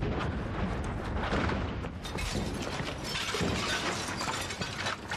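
Dense clattering and crackling handling noise from a camera and its gear jostled while being carried at a run, many small knocks and scrapes close to the microphone.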